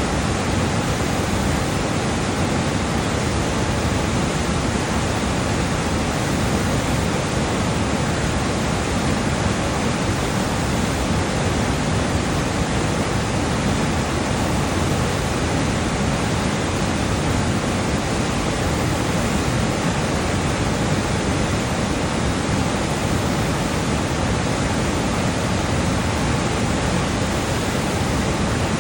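The upper Rogue River rushing in whitewater through a channel of giant boulders: a steady, unbroken noise of churning water.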